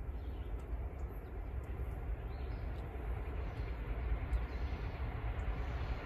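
Low rumble of an approaching freight train's ALCO-design diesel locomotives (an M630, C636 and C425), still far off and slowly growing louder, with scattered bird chirps over it.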